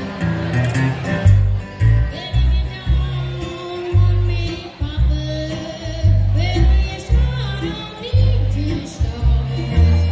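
Live acoustic string band playing country music: an upright bass plucking a steady, prominent bass line under strummed acoustic guitar and a bowed fiddle melody.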